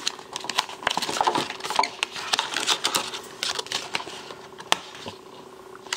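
Rigid clear plastic packaging and a cardboard insert crackling and clicking irregularly as headphones are worked free of them by hand, with one sharper click about three quarters of the way through.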